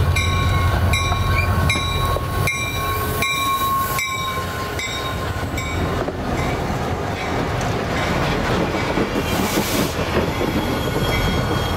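CSX and Norfolk Southern diesel locomotives passing close by. Heavy engine rumble fades a few seconds in as the units go by, followed by steady wheel and rail noise from the trailing unit and caboose. Through the first half, a bell dings about twice a second.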